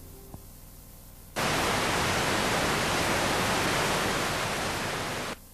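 Loud, even static hiss like white noise that switches on suddenly about a second and a half in and cuts off abruptly near the end. It comes just after the faint last notes of music die away and a single click.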